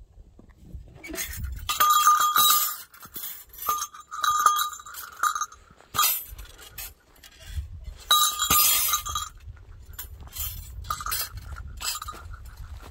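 A small metal bell jingling in irregular bursts of shaking, about six times, over a low rumble of handling or wind.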